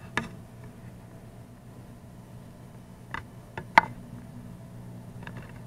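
A few light handling clicks and knocks, the loudest a little under four seconds in, over a steady low hum.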